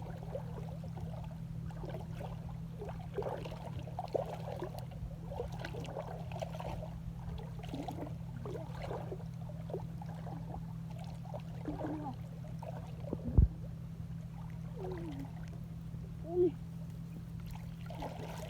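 A steady low motor hum with scattered water trickling and sloshing sounds. There is one sharp knock about 13 seconds in and a duller thud about 16 seconds in.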